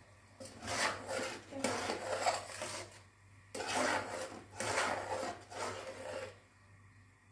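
Metal spoon scraping around a metal pan as a runny semolina-and-water halwa mixture is stirred. It comes in two runs of quick scraping strokes, the second starting about three and a half seconds in.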